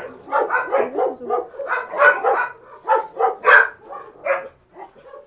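Dogs barking in short, quick barks, about three a second, growing fainter and sparser near the end.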